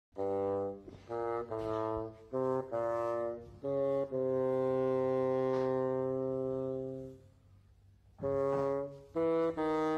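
Background music: a solo brass-like wind instrument playing a slow tune of short notes, then one long held note, a short pause, and a few more notes.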